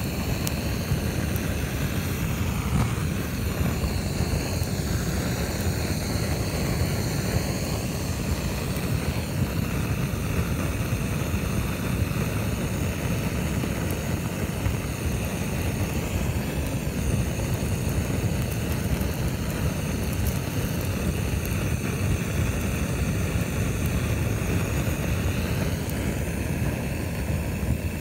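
Handheld gas torch running steadily with a continuous flame noise as it singes the fur off an animal carcass.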